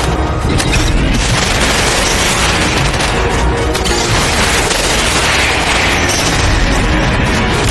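Loud, dense music track with a heavy low rumble and booming effects mixed in, running without a break.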